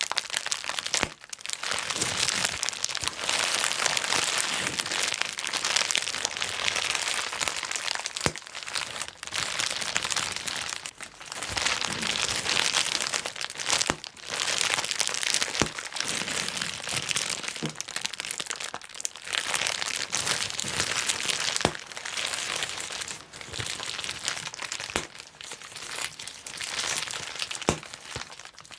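Plastic bubble wrap being handled and popped: continuous crinkling of the plastic with many sharp pops, in dense runs broken by a few short pauses.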